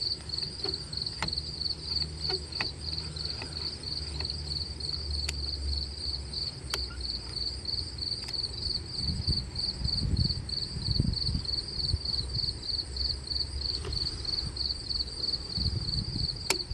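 Insects, such as crickets, chirping in a steady, rapid high-pitched pulsing, with a few light clicks and some low rumbling.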